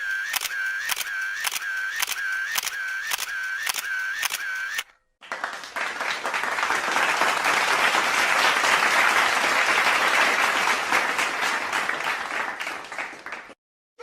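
Sound-effect clips: first a run of evenly spaced clicks, about two and a half a second, each with a short tone, lasting about five seconds. After a brief gap comes applause, a crowd clapping that swells and then fades for about eight seconds before cutting off.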